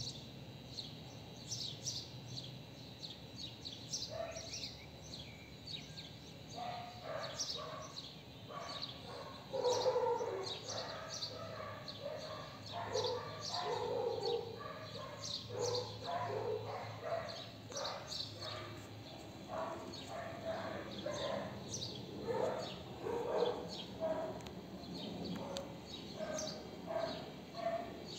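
Small birds chirping throughout, with a dog barking repeatedly from about four seconds in.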